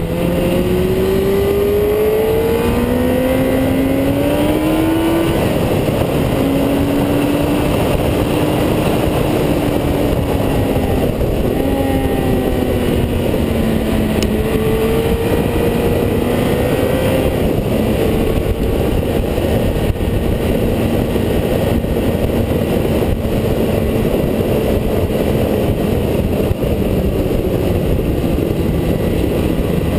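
Car engine under way on a winding road, its note climbing and dropping several times as it accelerates and shifts in the first half, then holding fairly steady, over a constant rush of wind and road noise.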